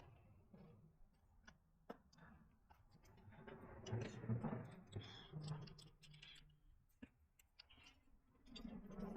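Faint scattered clicks and soft rubbing from hands working a tire bead onto a bicycle rim. The rubbing is loudest in the middle.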